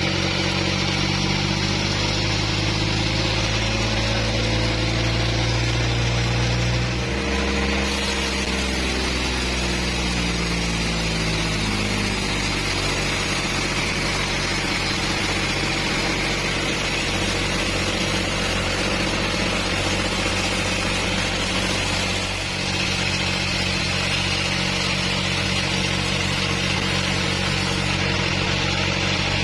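Engine-driven bandsaw mill running steadily while sawing a trembesi log. About seven seconds in, the engine's pitch falls over several seconds, and the sound shifts briefly again near 22 s.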